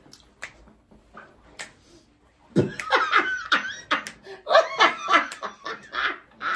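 A woman laughing hard in loud, repeated bursts that start about two and a half seconds in, after a quieter stretch with a few faint clicks.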